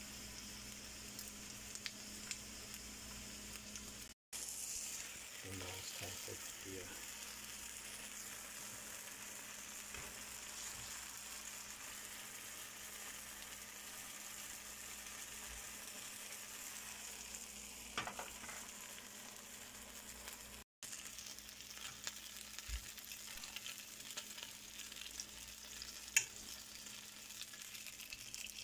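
Oil sizzling steadily in a nonstick frying pan as plant-based sausages fry, then as liquid plant-based egg cooks. The sizzle breaks off for an instant twice.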